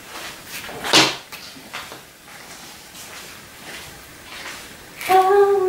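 Quiet handling of paper and feathers on a tabletop, with one short noisy burst about a second in; near the end a voice starts humming a held note.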